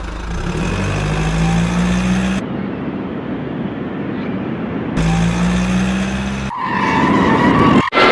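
Car sound effect: an engine revving up, a stretch of tyre-skid noise, the engine again, then a high squeal that cuts off abruptly near the end.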